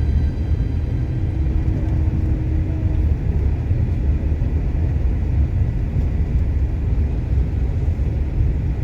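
Bus driving along the road: a steady low rumble of engine and tyre noise.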